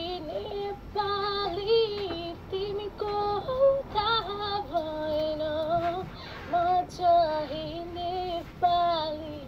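A woman singing a melody in phrases of long held, slightly wavering notes with short breaks between them, heard as played back through a screen's speaker.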